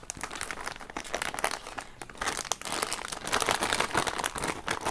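Plastic snack bag crinkling as marshmallows are shaken out of it into a bowl. The rustling gets denser and louder about two seconds in.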